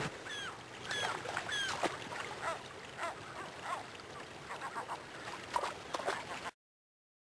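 Gulls calling repeatedly over the steady rush of a shallow river; the sound cuts off suddenly near the end.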